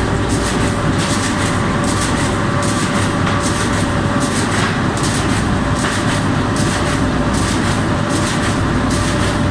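Inline flexo printer slotter machine running, feeding corrugated board sheets along its conveyor: a steady mechanical hum with a regular clatter about two to three times a second.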